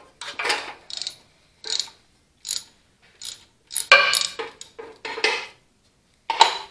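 Ratchet wrench clicking in short, irregular runs while the clamp on the tractor's positive battery cable is undone, with metal clinks and a louder clatter about four seconds in as the cable terminal is worked loose.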